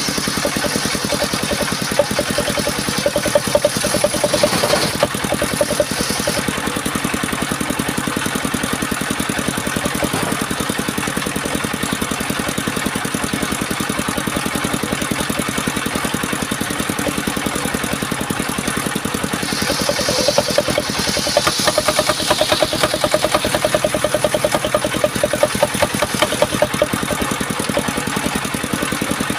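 Engine-driven homemade circular sawmill rig running steadily. It grows louder and brighter through the first few seconds and again from about 20 to 27 seconds, as the circular saw blade cuts through the log.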